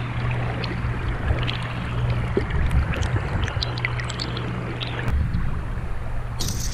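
Small stream flowing, heard through a camera housing half under the water: a steady muffled rush with a low rumble and scattered small ticks and pops. A brief sharper hiss comes near the end.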